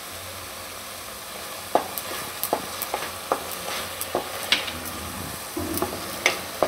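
Grated tomato sautéing in hot oil in a kadhai with a steady, gentle sizzle. From about two seconds in, a spatula scrapes and knocks against the pan in irregular strokes, a few a second, as the mixture is stirred.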